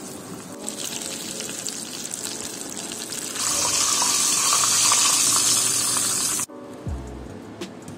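Whole gourami coated in tapioca batter frying in hot oil in a wok, a steady sizzle that grows louder about three and a half seconds in. It cuts off abruptly near the end and gives way to background music.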